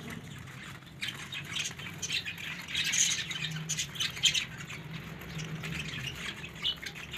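A flock of domestic pigeons feeding on grain on a concrete yard: a rapid, irregular patter of pecking taps mixed with bird calls.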